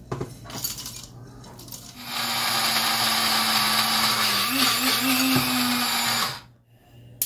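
Electric spice grinder running for about four seconds, dry-grinding whole garam masala spices with roasted chickpeas into powder. The motor starts about two seconds in, hums steadily with a brief wobble in pitch midway, and cuts off suddenly. A few light knocks from handling the grinder come before it.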